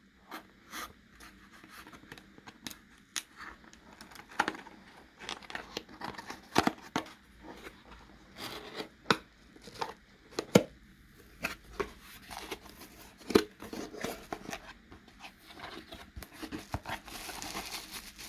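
Packaging of a ceramic mug being opened and unwrapped by hand: a string of sharp clicks, short rustles and tearing sounds, with a longer stretch of rustling near the end.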